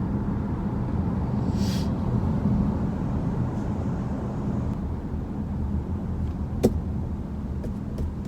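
Steady road and tyre rumble inside a Genesis GV70's cabin on the move, with a brief hiss about two seconds in. A few sharp, irregular clicks come near the end: the rattle that the driver traces to the door.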